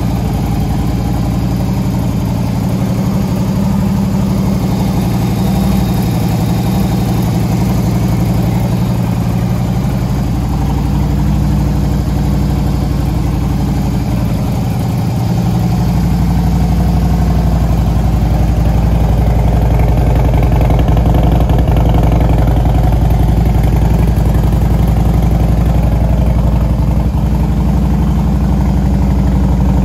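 Harley-Davidson Road King's 1584cc V-twin idling through Vance & Hines fishtail exhausts, a steady loping rumble. It grows a little louder and deeper about halfway through.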